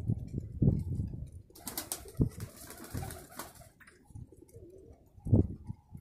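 Domestic pigeons cooing in a series of low calls, with a stretch of rustling hiss in the middle.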